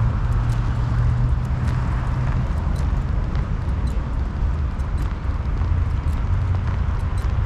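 City street ambience: a steady low rumble of traffic, with footsteps clicking about twice a second.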